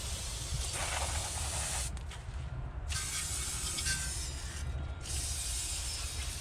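Aerosol brake cleaner spraying onto the rear hub in three hissing bursts, with short breaks about two seconds and about five seconds in, over a steady low hum.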